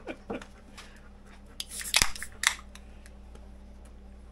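Aluminium beer cans being cracked open: a short hiss and a sharp pop about two seconds in, then a second pop half a second later.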